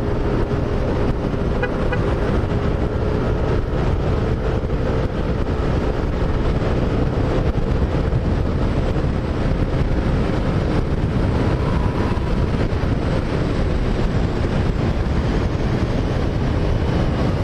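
Steady rush of wind and road noise from riding a motorcycle through traffic, picked up by an action camera's external microphone, with engine and traffic sound beneath it. A faint steady hum runs through the first half.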